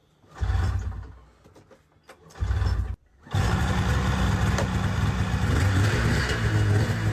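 An engine started: two short tries that die away, then it catches a little after three seconds in and runs steadily.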